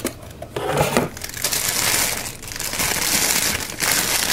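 Crinkling and rustling of the lens packaging as the lens is unwrapped, in two long stretches.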